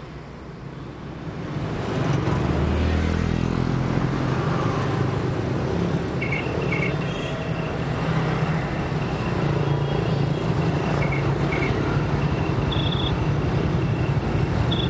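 Motor scooter engine running with street traffic noise. In the second half, short electronic beeps repeat several times: a mobile phone ringing.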